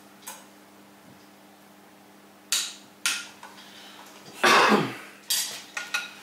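Metal-on-metal clinks of tools and parts against the clutch pressure plate and flywheel of a Volvo B20 engine: several short sharp clinks, with one longer, louder clatter about four and a half seconds in.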